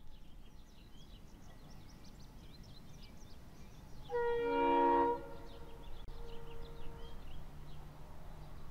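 A locomotive air horn sounds one blast of about a second, several notes at once, near the middle. Birds chirp throughout over a steady low rumble.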